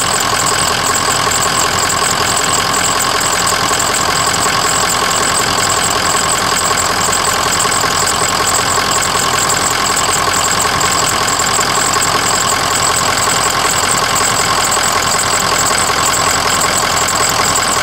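Ford 6.0 Powerstroke V8 turbo-diesel idling steadily.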